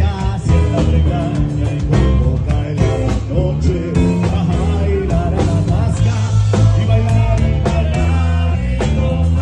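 Live band music, loud and steady, with a man singing into a microphone over bass guitar, drums and keyboard.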